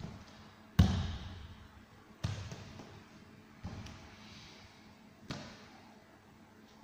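Four heavy thuds about a second and a half apart, the first the loudest, each trailing off in the hall's echo: bare feet stamping on a martial-arts floor mat.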